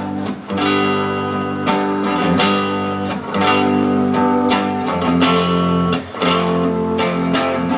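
Guitar strumming ringing chords, an instrumental passage with no voice, the strokes falling roughly every half second to second.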